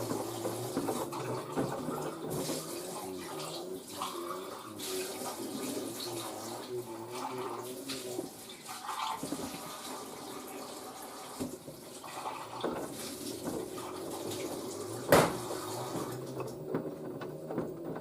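LG DirectDrive F1496AD washer dryer partway through a cottons wash, with water rushing and sloshing in the drum over a steady low hum. A single sharp knock about fifteen seconds in.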